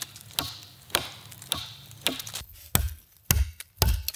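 A TB Outdoors Vengeur survival knife chopping into a thin wooden pole: seven sharp strikes at about two a second, the last three landing harder with a deeper thud.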